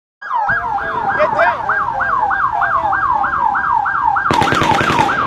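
Emergency vehicle siren in yelp mode, its pitch sweeping rapidly up and down about three times a second. In the last second a rapid burst of automatic gunfire, about ten shots a second, cuts in over it.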